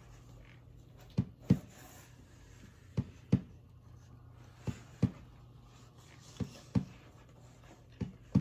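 Slow heartbeat sound: paired low thumps in a lub-dub pattern, five pairs repeating about every 1.7 seconds, over a faint steady low hum.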